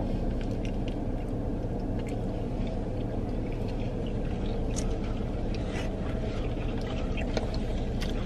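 Steady low hum inside a parked car, with scattered faint clicks and scrapes of plastic forks against plastic takeout containers.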